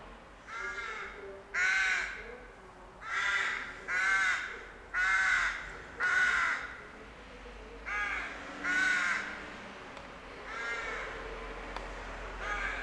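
Rooks cawing: about ten harsh caws at irregular intervals, some coming in quick pairs.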